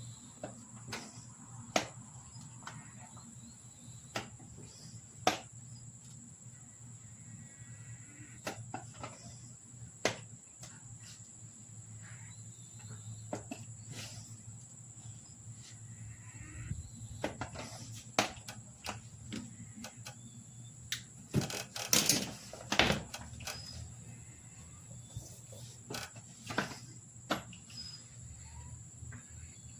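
Crickets trilling steadily and high-pitched throughout, with a low steady hum beneath. Scattered sharp clicks and knocks sound over it, with a dense run of them about 22 seconds in.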